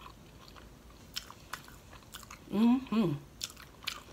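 Close-miked chewing of fried shrimp, with scattered small wet mouth clicks. About two and a half seconds in, a short two-part hum comes from the eater.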